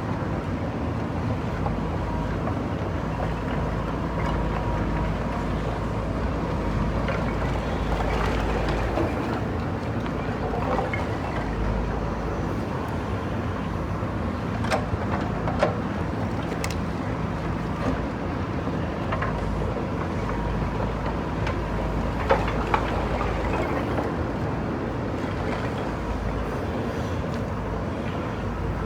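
JCB backhoe loader's diesel engine running steadily, with a few short sharp knocks scattered through.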